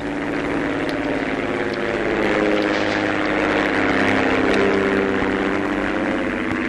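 Single-engine light propeller plane flying overhead, its engine droning steadily. The drone swells toward the middle and eases off slightly near the end.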